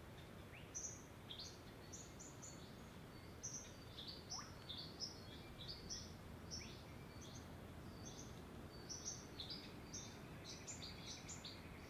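Quiet forest ambience: small birds giving many short, high chirps over a steady low background rumble.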